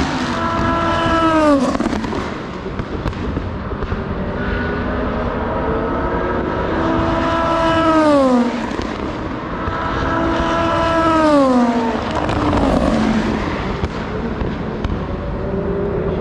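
Several IMSA race cars passing one after another at full speed. Each engine's pitched note falls sharply as the car goes by.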